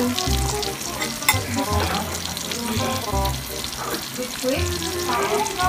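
Breaded chicken fingers frying in hot oil: a steady crackling sizzle, with a sharp click about a second in.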